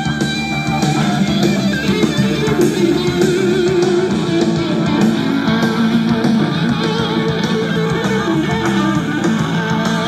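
Guitar rock music playing loudly through the built-in speakers of a Telefunken RC 760 TS stereo radio cassette recorder.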